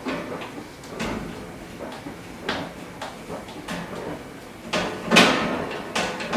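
Range hood's chimney shroud being handled and taken off: a run of knocks, scrapes and light clatters, the loudest knock about five seconds in.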